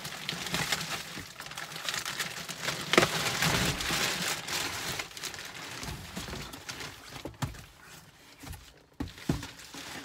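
Bubble wrap and a cardboard box crinkling and rustling as a packed console vault is pulled out and unwrapped, loudest about three seconds in. In the second half the rustling thins out into a few separate knocks as the vault is handled.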